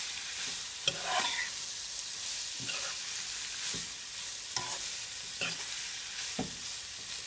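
Shredded chicken with onions, garlic and bell peppers sizzling in a hot pan while being stirred, the utensil scraping and knocking against the pan about once a second.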